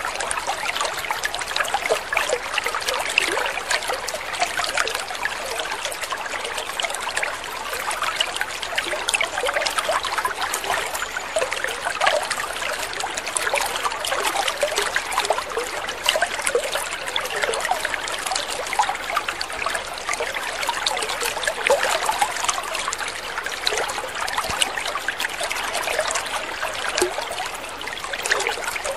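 Water trickling and splashing steadily, a continuous patter of many small splashes with no pauses.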